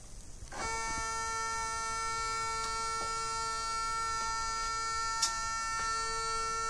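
The motor of a motorized linear stage starts about half a second in and runs at a constant speed with a steady, even whine, driving the light detector's carriage along its rail. There is a single light click a little after five seconds.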